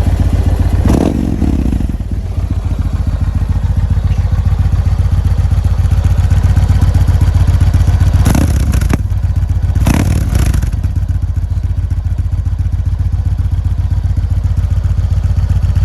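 An engine running steadily with an even low pulse, with brief louder noises about a second in and twice more near eight and ten seconds in.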